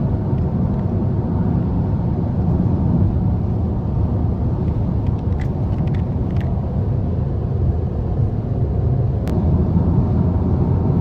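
Steady low rumble of a car on the move, as heard from inside the cabin, with a few faint clicks.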